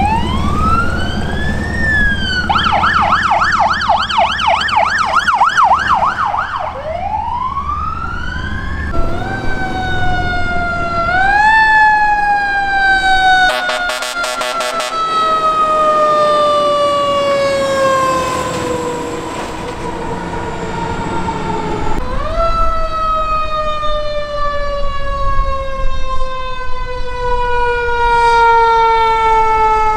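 Emergency vehicle sirens: an electronic siren wails, switches to a fast yelp about two seconds in, then wails again. From about nine seconds a fire truck's mechanical siren takes over, spun up in short bursts and then left to coast slowly down in pitch, over low engine rumble.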